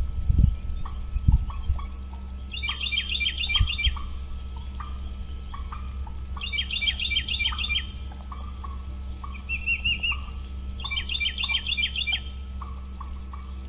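A bird calling in repeated bursts of rapid, high, falling chirps, each burst just over a second long and coming about every four seconds. Scattered softer, lower notes fall in between, over a steady low hum, with a few low thumps in the first second or so.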